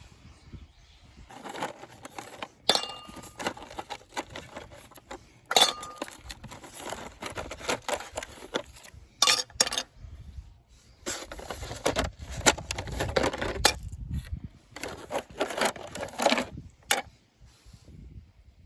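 Small hard objects clinking and knocking as gear is handled, in irregular bursts with quiet gaps; one or two clinks ring briefly.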